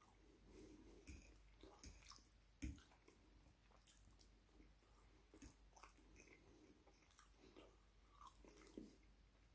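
Faint chewing of a mouthful of biryani rice, with a few light clicks of a metal fork on a ceramic plate; the sharpest click comes about two and a half seconds in.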